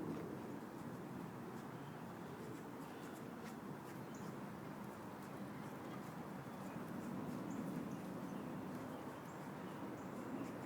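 A few faint, short, high-pitched squeaks from a squirrel, spaced seconds apart, over a steady background hiss.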